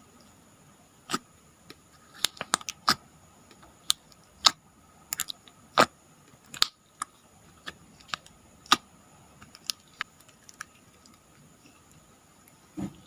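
Slime being squeezed and poked by hand, giving irregular sharp clicks and pops, about one or two a second, thinning out near the end.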